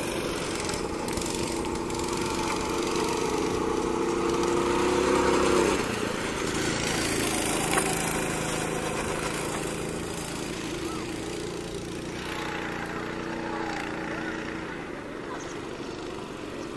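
Small petrol engine of a go-kart running on the track, its note rising and getting louder, then cutting back sharply about six seconds in. It runs on at a lower note and swells again briefly later.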